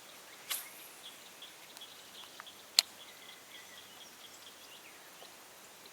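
Quiet outdoor ambience with faint high chirping, broken by a short swish about half a second in and a single sharp click near the middle.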